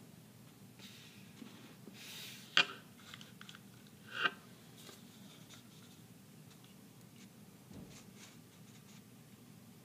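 Hollow plastic toy bowling pins being handled and set down on a surface: faint rubbing and rustling, with two sharp light knocks about two and a half and four seconds in.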